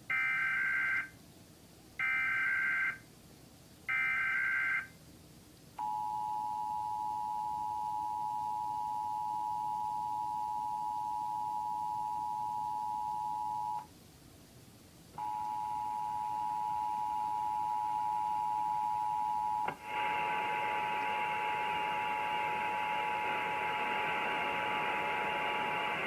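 Emergency Alert System test signals: three one-second screeching SAME digital header bursts, then the steady two-tone EAS attention signal (853 and 960 Hz). The tone pair stops for about a second and a half, resumes, and about 20 seconds in is joined by a broad hiss.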